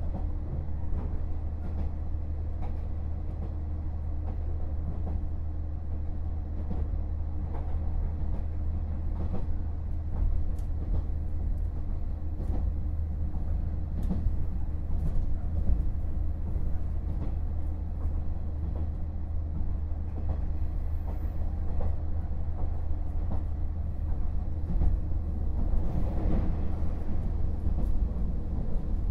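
Running sound of a KiHa 48 500-series diesel railcar under way: a steady low diesel engine drone with a constant tone, and scattered clicks from the wheels on the rails. The sound grows a little louder over the last few seconds.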